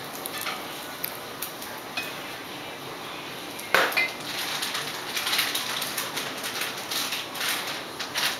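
Irregular taps and knocks on a plastic high chair tray as a toddler handles pieces of banana, with one louder knock about four seconds in and a busier run of tapping after it.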